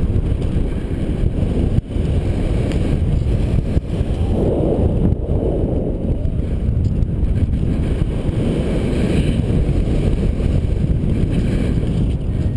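Airflow of paraglider flight buffeting the camera's microphone: a steady, low rush of wind noise, with a brief dip a little under two seconds in.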